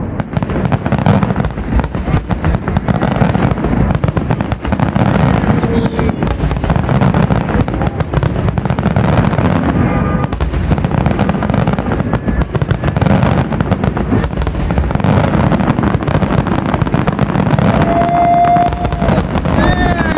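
Fireworks grand finale: a dense, continuous barrage of aerial shell bursts, the bangs overlapping with barely a gap.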